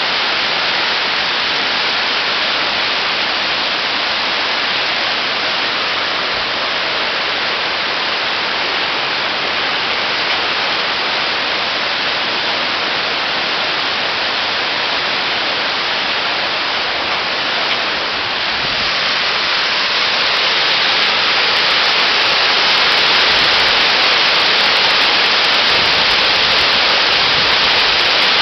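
Mountain stream rushing over rocks and small cascades: a steady, loud rush of white water. It grows a little louder about two-thirds of the way in, as a waterfall comes into view.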